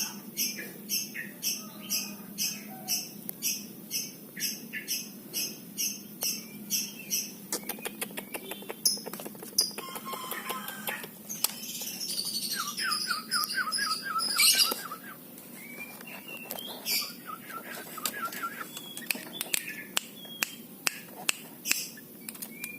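Yellow-vented bulbul calling: a steady run of short, high chirps about twice a second, then scattered chirps, a quick rattling series and a few sharp clicks.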